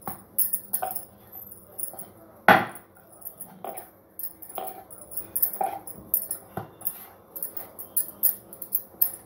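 Hands kneading and pressing a ball of maida dough on a floured wooden rolling board, with soft irregular thumps and the wearer's bangles jingling throughout. One louder knock about two and a half seconds in.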